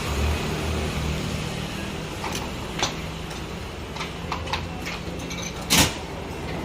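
Steady low hum with a few scattered sharp clicks and knocks, the loudest near the end.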